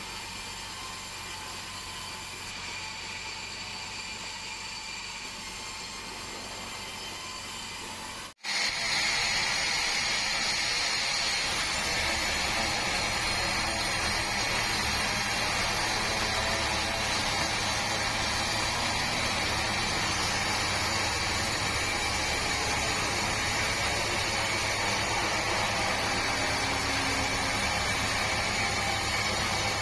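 Band sawmill running with a steady mechanical noise. A sudden break about eight seconds in, after which it is louder, with a steady high whine over a low hum.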